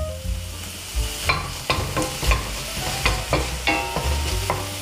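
Wooden spatula scraping and knocking against a stainless steel frying pan as whelks and green onion are stir-fried in chili sauce, with a steady light sizzle underneath. The knocks come irregularly, roughly every half second, from about a second in.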